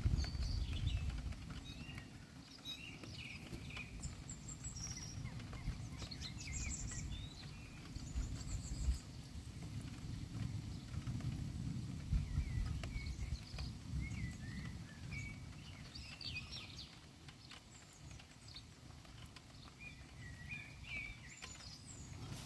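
Birds chirping and calling off and on over a steady low rumble that swells now and then.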